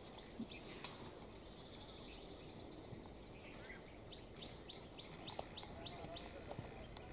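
Small birds chirping and trilling, including a run of quick repeated chirps in the middle, over a quiet natural background, with a few faint sharp clicks about a second in.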